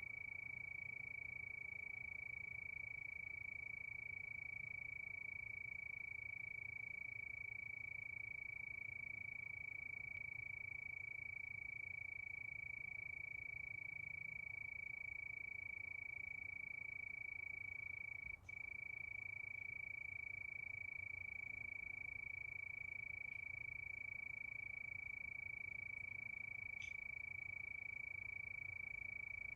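A chorus of crickets chirping in one steady, unbroken high trill, with a brief break about eighteen seconds in.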